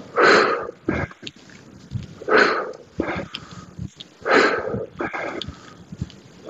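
A man breathing hard from exertion during suitcase dumbbell squats: a loud exhale about every two seconds, with shorter, quieter breaths in between.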